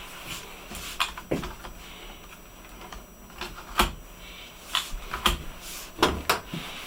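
Irregular clicks and light knocks of plastic laptop parts being handled during disassembly of a Dynabook F40 notebook, with two sharper knocks about four and six seconds in.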